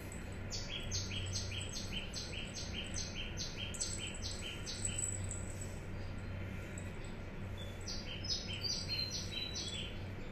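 A bird calling: a rapid series of two-note calls, each a high note dropping to a lower one, about three or four a second. It runs for some three seconds, then comes again more briefly near the end, over a low steady hum.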